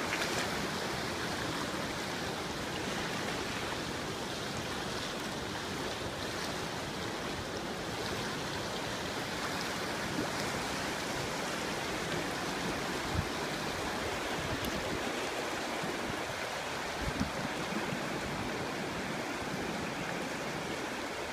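Flash floodwater rushing steadily down a desert wash, with a few faint bumps in the second half.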